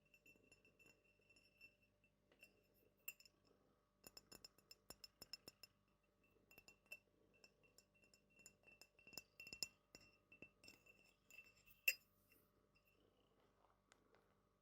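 Soft, quick clinks and taps of small glass items against each other, with a faint high ringing after the strikes; one sharper clink about twelve seconds in.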